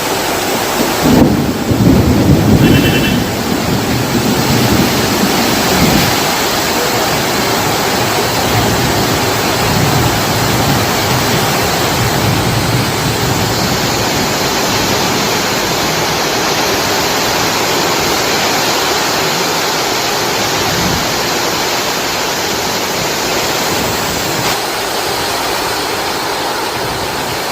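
Heavy rain pouring steadily. A few low rumbles rise out of it, loudest about one to three seconds in.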